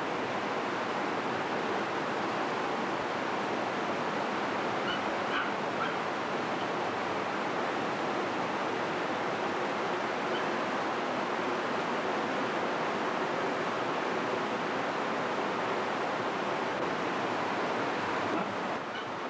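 Steady rushing noise of flowing floodwater, an even roar with no breaks.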